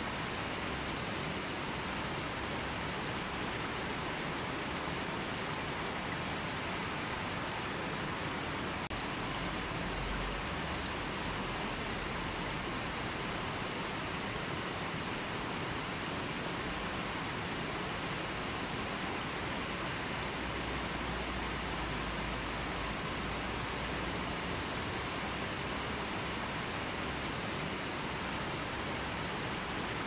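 Fast river flowing over boulders and stones: a steady, even rush of water.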